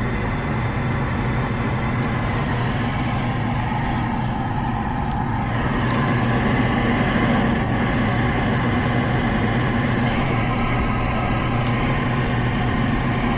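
Gas furnace running: a steady motor hum with a rush of air, growing slightly louder about six seconds in, with its faulty pressure switch jumped out.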